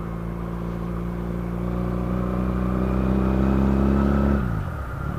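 Small motorcycle engine running under way, its note steady and slowly growing louder. Near the end the engine note falls as the throttle eases, then starts to rise again.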